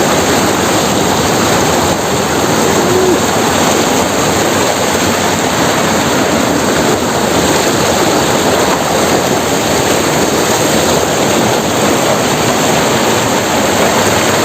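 River water pouring over a check dam's weir at full force, a loud, steady rush.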